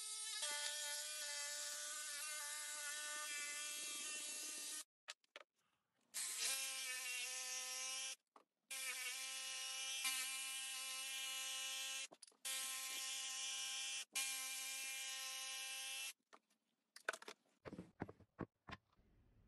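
Cordless Makita jigsaw cutting a curved line through a wooden rocker blank: a steady motor whine with the buzz of the blade, cutting out and starting again several times. In the last couple of seconds, a few light knocks of wood on the bench.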